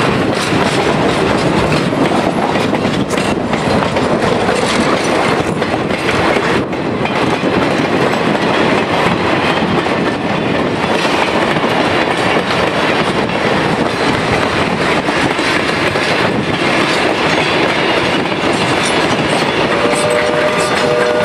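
Passenger cars of a train rolling past at close range, with a steady clatter of steel wheels over the rail joints. Near the end, as the steam locomotive draws level, a steady pitched tone joins in.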